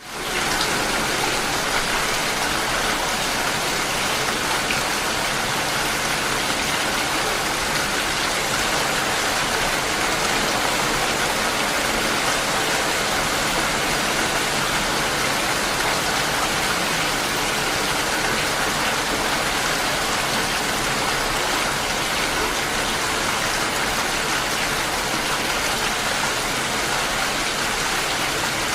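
Steady rain falling, an even hiss of rain on surfaces that fades in at the very start and then holds without change.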